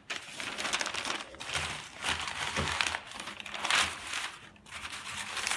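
Sheets of newsprint crinkling and rustling as they are crumpled by hand around balls of scrap paper, in uneven bursts. The loudest bursts come about two seconds in and again near four seconds.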